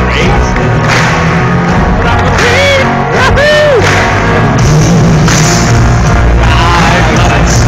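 Loud rock music with singing, a few sung notes swooping up and down about three seconds in.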